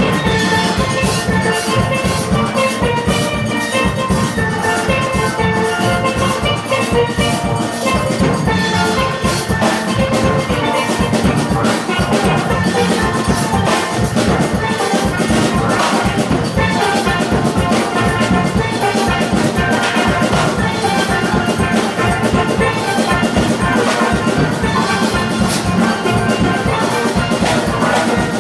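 Youth steel orchestra playing live on steelpans, many pans striking notes together, with drums keeping a steady beat.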